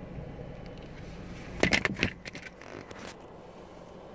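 Handling noise from a phone being moved: a short cluster of scraping, rustling clicks a little over a second and a half in, then a few lighter ticks. A low steady car-cabin hum runs underneath.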